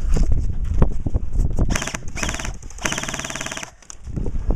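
Airsoft gun firing three rapid full-auto bursts, each a fast, even rattle, starting a little under two seconds in; the third burst is the longest. Low rumbling handling and wind noise is heard before and after the bursts.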